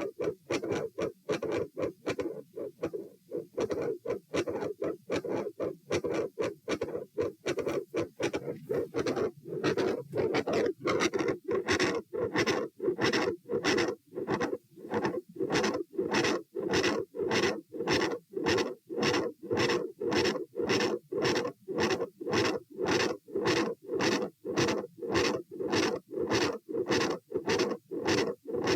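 Human heartbeat heard through a stethoscope on the chest: a steady run of rough, scratchy beats over an unbroken whooshing, which the recorder calls a continuous heart murmur. The beats grow louder and more regular about ten seconds in.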